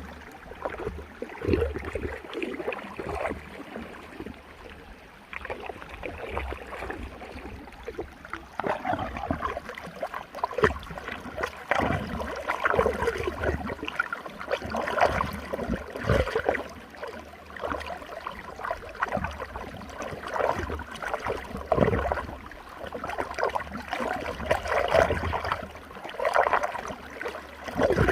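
Running water swirling in a whirlpool, an uneven gurgling and splashing with frequent small surges.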